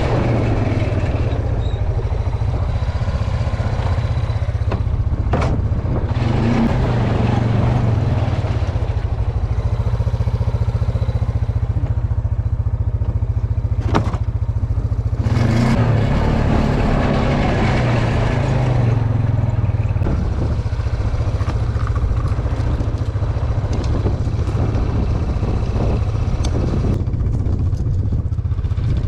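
A small vehicle engine running steadily at low speed, with rattling and a few sharp knocks.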